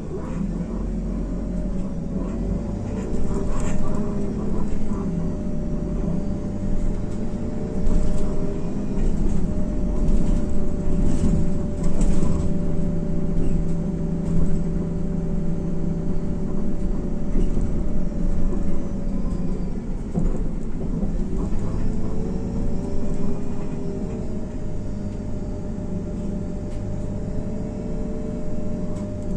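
Inside an IVECO Crossway LE city bus under way: its Cursor 9 six-cylinder diesel and Voith automatic gearbox give a steady low rumble with a whine. The whine climbs, holds, drops about twenty seconds in and climbs again, with a few short knocks from the body along the way.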